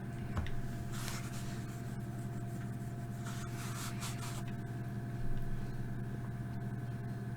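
A steady electrical hum runs throughout. Short rustling handling noises come about a second in and again around three to four seconds in, with a light knock near the start and another about five seconds in.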